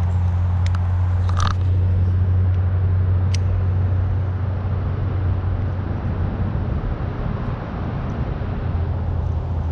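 Steady low drone of distant road traffic, with a few faint clicks from a baitcasting reel being worked, the clearest about a second and a half in.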